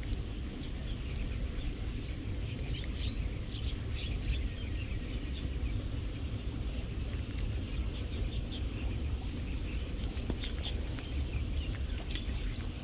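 Outdoor rural ambience: insects chirping in repeated short pulsed trills over a steady high insect drone, with a continuous low rumble and a few faint scattered ticks.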